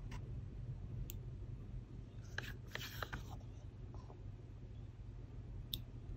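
A wooden spoon scooping thick yogurt from a plastic cup into a glass: faint soft scrapes and little clicks, bunched about two and a half to three seconds in, over a steady low hum.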